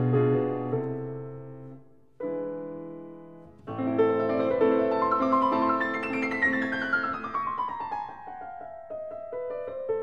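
Background piano music: chords that ring and fade, with new chords struck about two and three and a half seconds in, then a run of notes stepping down in pitch in the second half.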